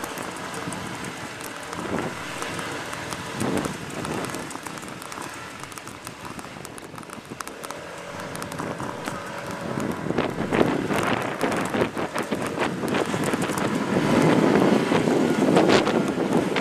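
City street ambience: a steady hum of traffic, with wind buffeting the microphone and growing louder over the last six seconds or so.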